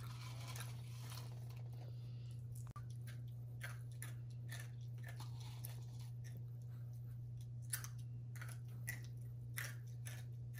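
Soft, irregular clicks and rustles of thread being wound and tied on a small wooden popsicle-stick pulley, over a steady low hum.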